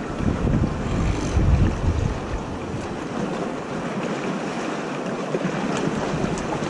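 Wind buffeting the microphone over the wash of sea water on a rocky shore. The low rumbling gusts are heavy for the first few seconds and ease off about halfway through.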